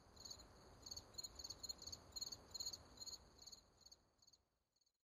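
Crickets chirping faintly in short repeated pulsed chirps, a night insect chorus that fades out near the end.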